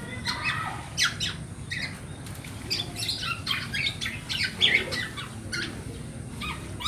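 Black-naped oriole chick calling: a string of short, harsh notes in quick, irregular succession, several a second.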